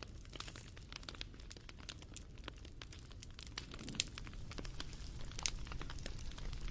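Wood fire crackling: irregular sharp pops and snaps over a low steady rumble of flames, with louder snaps about four seconds in and again a second and a half later.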